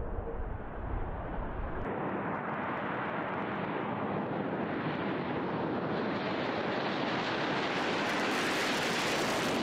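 Jet noise from a B-2 Spirit's four General Electric F118 turbofans, a steady rushing roar. About two seconds in, the deep rumble drops away abruptly. The sound then grows brighter and a little louder toward the end.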